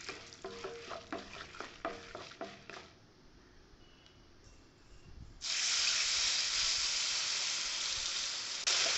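A tempering of seeds, lentils, peanuts and curry leaves crackles and spits in hot oil in a kadai. About five seconds in, tamarind water hits the hot oil with a sudden loud hiss and keeps sizzling steadily, flaring again near the end as more is poured.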